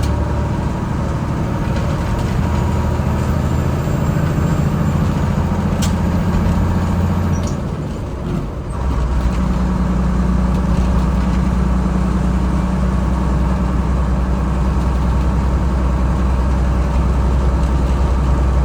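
Diesel engine of a GMC cab-over truck running steadily. The engine sound drops briefly about eight seconds in, then carries on steady.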